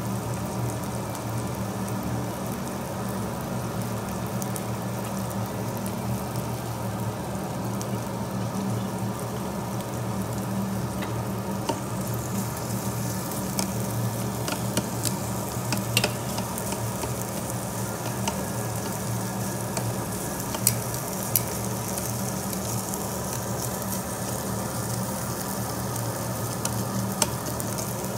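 Marinated duck meat sizzling on a round tabletop grill grate, with a steady low hum underneath. Metal tongs click sharply against the grill a few times in the second half as pieces are turned.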